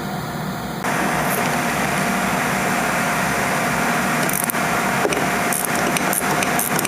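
Steady mechanical running noise with a faint steady whine, stepping up about a second in, as the 18mm nut is worked off a sway bar end link stud. Sharp metallic clicks join about four seconds in and come more and more often.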